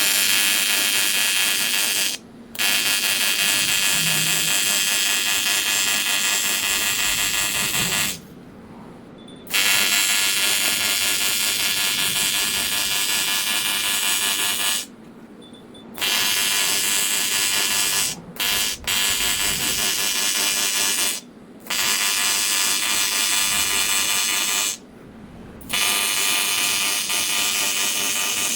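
AC TIG welding arc on aluminium, a loud steady buzz. It stops abruptly several times for a moment to about a second and a half and starts again as the torch is switched off and back on between runs.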